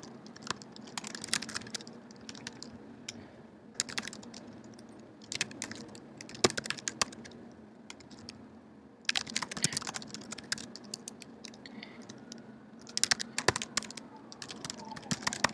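Typing on a computer keyboard: irregular runs of key clicks broken by short pauses, with a busier flurry about two-thirds of the way through and another near the end.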